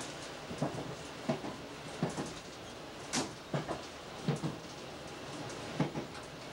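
Wheels of a Fiat ADn 602 diesel railcar knocking over rail joints, heard inside the driver's cab: a series of short clicks and knocks, often in quick pairs, over a steady running noise.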